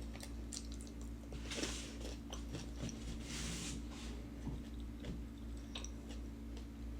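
Close-up chewing and biting into crisp fried food (fried shrimp and fries), with small mouth clicks and two louder crunches, about one and a half and three and a half seconds in.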